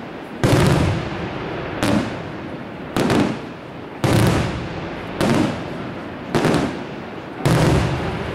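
Aerial fireworks shells bursting overhead, seven loud booms about a second apart, each followed by a rolling echo.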